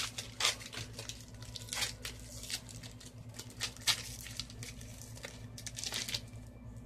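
Paper-and-foil rustling as an opened Pokémon booster pack is handled: the wrapper crinkling and the cards sliding and flicking against each other in short, irregular rustles, with a steady low hum underneath.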